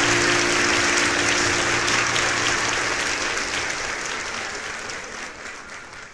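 Crowd applauding, many hands clapping together, fading away steadily towards the end.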